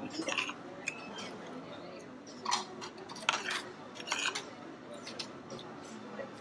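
Eating sounds: cutlery clicking against a plate and crunchy chewing of raw salad, in a scatter of short clicks and a few brief bursts.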